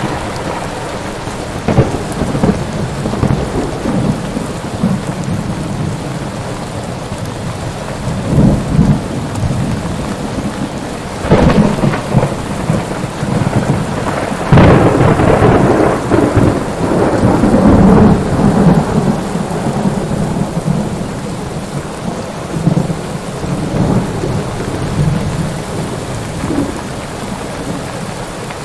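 Steady heavy rain with thunder: sharp cracks about 2, 11 and 14 seconds in, and a long deep rumble that swells and then dies away in the second half.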